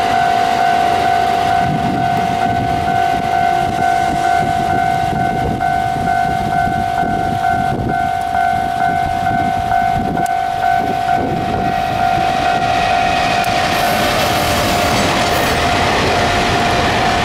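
Level crossing warning bell ringing, one steady pulsing tone, over an electric-locomotive-hauled freight train rolling past with a low rumble and wheels clacking over rail joints. The train noise grows louder and hissier in the last few seconds as the locomotives draw near.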